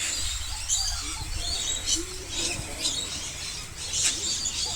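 A group of apostlebirds calling, with many short, overlapping chirps.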